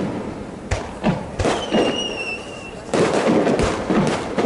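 Aerial firework shells bursting: booms and crackles a few per second, growing into a dense barrage in the second half. A high, steady whistle sounds for about a second near the middle.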